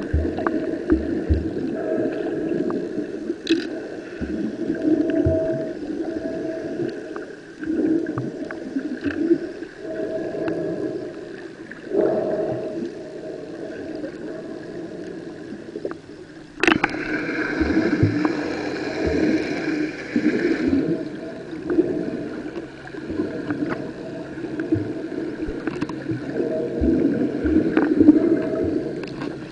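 Muffled underwater sound through a camera's waterproof housing: water sloshing and rumbling around waders' legs under an on-off drone. About halfway through a sharp knock is followed by roughly four seconds of louder hiss.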